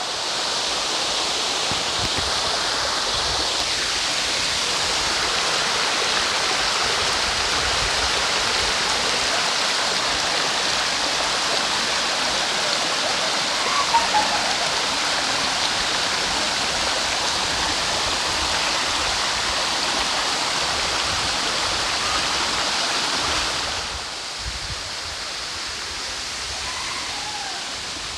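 Large waterfall, a steady rush of falling water that drops in level about 24 seconds in.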